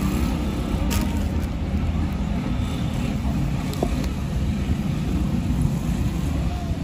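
Steady low outdoor rumble, with a single sharp click about a second in.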